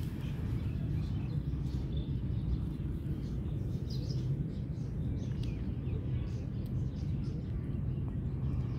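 Outdoor park ambience: a steady low rumble with faint, scattered bird chirps.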